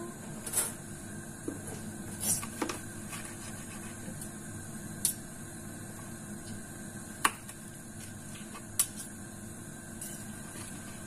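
Chef's knife slicing through half-cooked beef on a plastic cutting board, the blade knocking the board in several sharp taps, over a steady low hum.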